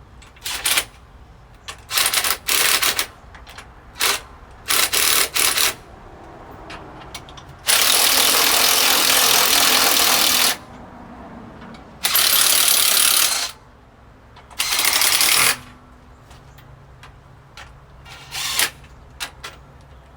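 Power impact wrench running bolts down a little at a time, in short bursts and then three longer runs of one to three seconds each.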